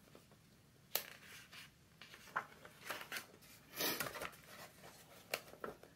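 Pages of a hardcover picture book being handled and turned, faint paper sounds. There is a sharp paper click about a second in, then soft rustles and a longer swish of the page a little before four seconds.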